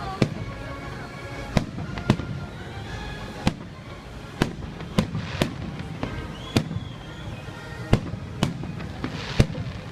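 Festive fireworks salute, shells bursting overhead in an irregular string of sharp bangs, about a dozen in ten seconds.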